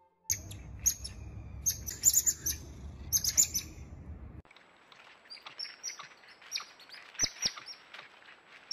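Many short, high-pitched chirping calls that fall in pitch, with a low rumble underneath for the first four seconds or so. After a sudden change, the chirps come cleaner and more often toward the end.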